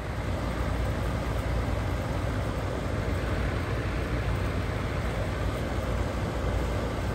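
Attic exhaust fan running in a wall-mounted frame: a steady rush of air over a strong low hum.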